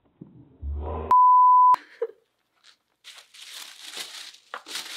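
A loud, steady bleep tone a little over half a second long, about a second in, the kind laid over a word to censor it. From about three seconds on, tissue paper rustling and crinkling as it is pulled back out of a gift box.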